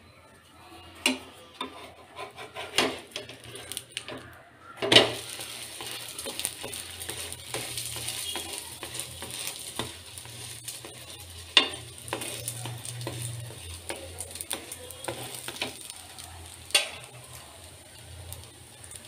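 Ghee and oil sizzling on a hot tawa under the stuffed dough, with a few sharp knocks of a spatula against the pan. The sizzling swells about five seconds in, right after the loudest knock, as the dough is turned.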